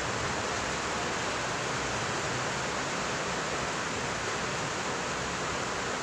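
Steady, even rushing hiss with no breaks or distinct knocks.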